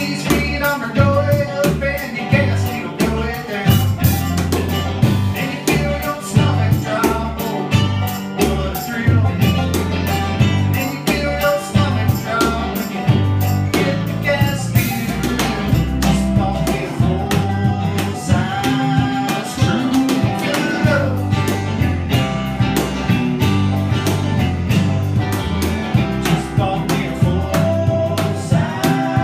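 Live band playing a song on electric guitar, bass guitar and drums, with a steady beat.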